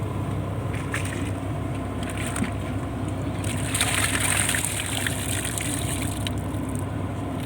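Fishing boat's engine running steadily, with a rush of water swelling up for about a second and a half near the middle.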